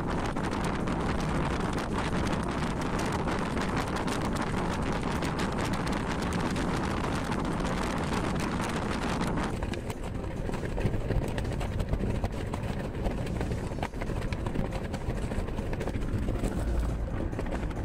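Wind rushing past a moving car's open window with a plastic sheet flapping hard in the airstream. About ten seconds in the sound changes suddenly to the duller low rumble of the car on the road.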